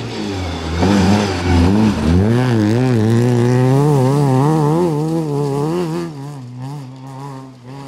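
Rally car's engine at full throttle as it passes on a gravel stage, the revs dipping, then climbing and wavering with throttle and gear changes, before fading as the car drives away. Gravel crunches and sprays under the tyres early on.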